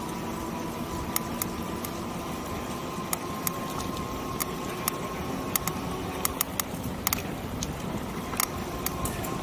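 E-bike riding over paving: the electric motor whines steadily under a rush of tyre and road noise, with scattered sharp clicks and rattles from the bike as it rolls over the paving.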